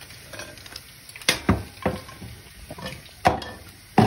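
Fried potato chips rustling and sliding as a wooden spoon scrapes them out of a glass bowl onto a ceramic plate, with about five sharp knocks of spoon and bowl against the dishes, the loudest two near the end.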